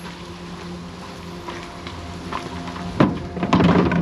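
Empty plastic 5-gallon water jugs knocking against each other and the pickup's bed as they are loaded, several sharp hollow knocks about three seconds in, over a steady low hum.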